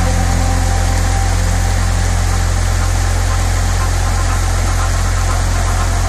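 Small waterfall's water rushing steadily over rocks, under a loud, steady low hum.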